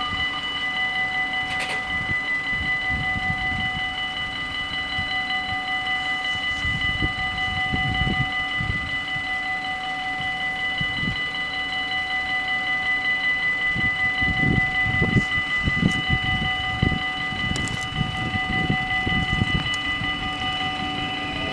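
Level-crossing bells of a Dutch automatic half-barrier crossing ringing continuously in a rapid, steady pulse while the barriers are down, with a low uneven rumble underneath.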